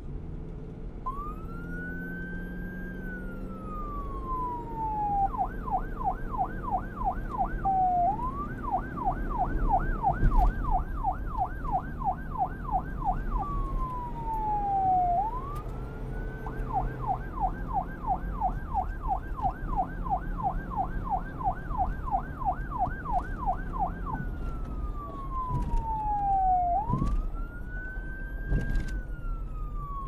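Electronic police siren alternating between a slow wail, rising and then falling away, and a rapid yelp of quick up-and-down sweeps, switching back and forth several times, over a low rumble.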